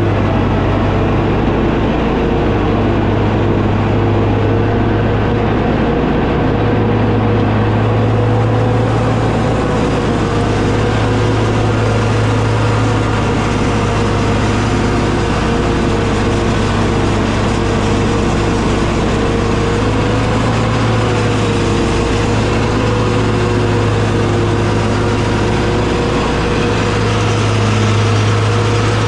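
Lawn mower engine running at a steady speed, with a deep even hum and no change in pitch.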